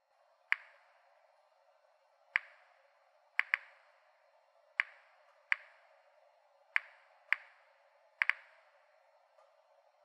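Geiger counter (a Series 900 radiation monitor) clicking at random, irregular intervals, about ten clicks with some in quick pairs, over a faint hiss. Each click is a detected radiation count from a pile of bananas, whose potassium-40 is weakly radioactive.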